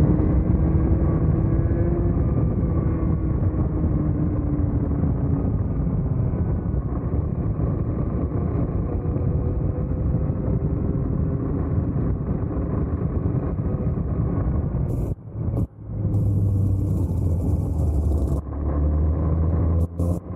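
Vortex Mini ROK 60cc two-stroke kart engine running at speed, heard from onboard the kart; its note rises and falls with the throttle. Late on the kart slows, the engine note sits lower, and the sound cuts out briefly twice.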